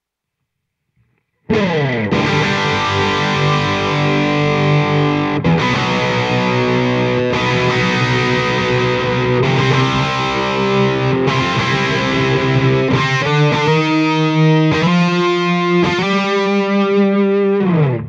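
Electric guitar played through a Line 6 HX Effects into a BluGuitar Amp 1 and an isolation cab, with a distorted tone. Sustained chords start about a second and a half in and change every second or two, turn into choppier repeated chords near the end, and cut off suddenly.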